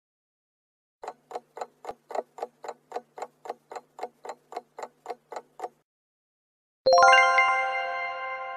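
Countdown timer sound effect: a clock ticking about four times a second for nearly five seconds while the answer time runs out, then a bright chime struck once, several tones ringing and fading, as the answer is revealed.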